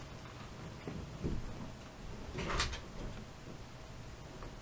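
Faint movement sounds from a person who has tipped over backward off an office chair: a soft bump about a second in and a brief scraping rustle about two and a half seconds in.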